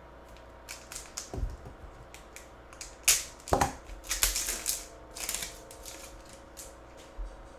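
Foil wrapper of a 2022 Rookies and Stars football card pack crinkling and tearing as it is opened by hand, then the stiff cards inside snapping and sliding against each other. It comes as a run of sharp crackles, loudest midway.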